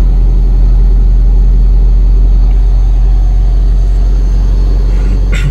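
Honda Civic ESi's D15B four-cylinder engine idling steadily right after a cold start.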